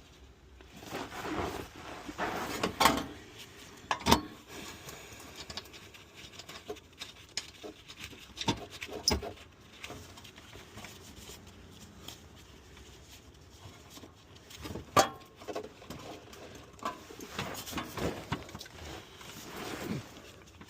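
Scattered clicks, knocks and rustling of tools and car parts being handled during hands-on work on a car, with several sharp knocks standing out among the quieter handling noise.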